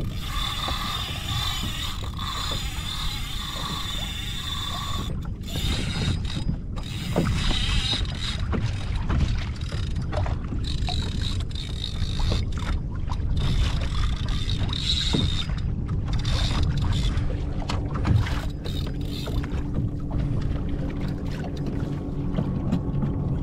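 Clicking and rattling of a spinning reel and rod on a fishing kayak, over wind and water noise. A faint high whine comes and goes.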